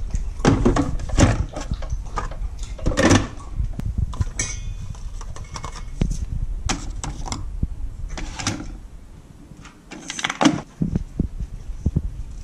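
Irregular plastic knocks and clicks from handling a Keurig single-cup coffee maker: the water reservoir is set back on the machine, a K-cup pod is taken from a rack and the brewer's lid is worked to load it. There is a quieter pause about two-thirds of the way through.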